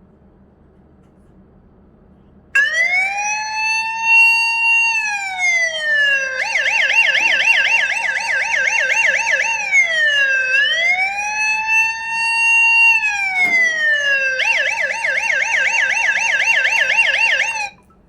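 Electronic siren alarm from a phone anti-theft app, set off when the phone is disturbed. It starts about two and a half seconds in and alternates slow rising-and-falling wails with fast warbling yelps, then cuts off suddenly near the end.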